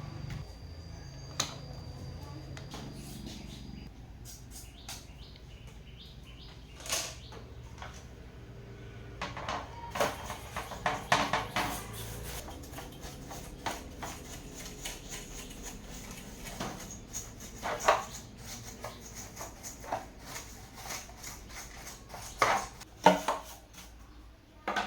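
Small metal tools and parts clinking and clicking as they are handled and set down on a workbench, irregular sharp taps coming in clusters over a steady low hum.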